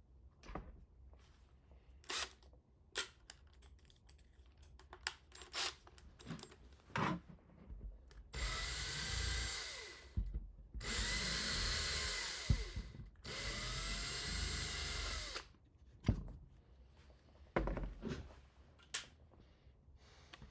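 Electric drill-driver run in three bursts of about two seconds each, its motor tone rising as it spins up and falling as it slows, likely driving screws into the printer's Z-axis assembly. Scattered clicks and knocks of parts and tools being handled come before and after the runs.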